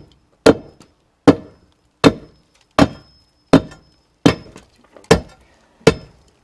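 A long steel bar striking and chipping a concrete sidewalk, breaking up the concrete: eight sharp strikes in a steady rhythm, about one every three-quarters of a second.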